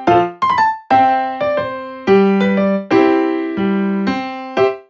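Background music: a light keyboard melody of struck notes that ring and fade, a few notes a second.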